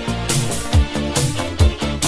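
Electronic dance music with a steady kick-drum beat, a hit a little under once a second, over a moving bass line.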